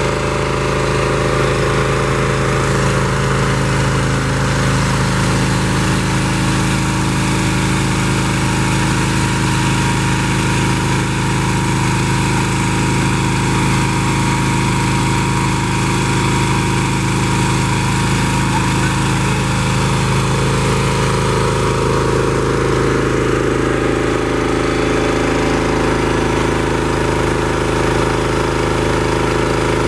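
Small engine of a hydraulic power pack running steadily under load, driving a hydraulic roller screed through its hose.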